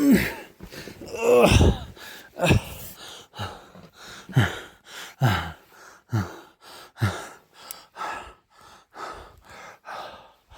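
A person breathing hard with voiced, groaning exhales. Two longer groans come in the first two seconds, then short gasping breaths follow at about one a second, each falling in pitch.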